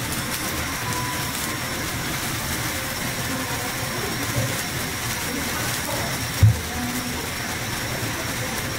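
Meat sizzling on a wire-mesh yakiniku table grill over charcoal: a steady hiss with a low rumble beneath it, and one brief low thump about six and a half seconds in.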